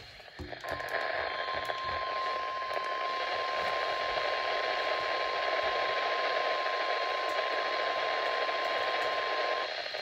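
NOAA Weather Radio 1050 Hz warning alarm tone, one steady pitch held for about nine seconds over radio static hiss and cutting off just before the end. It is the alert tone of a Required Weekly Test, heard through a weather radio's speaker.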